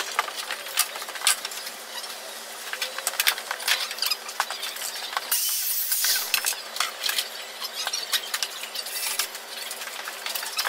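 Irregular small clicks, clinks and scraping sounds of objects being handled, with a short hissing rush a little past halfway, over a faint steady hum.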